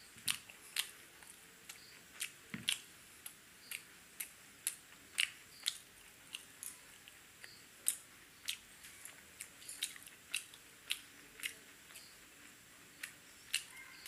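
A person chewing close to the microphone, with sharp wet mouth clicks and smacks about twice a second, while eating paratha dipped in chicken curry.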